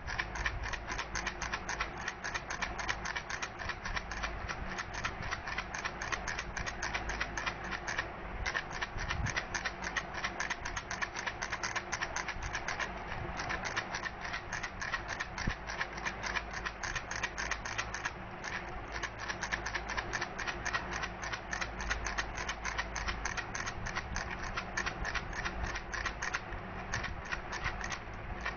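Baby rattle shaken steadily, a rapid, continuous clicking of the beads or pellets inside.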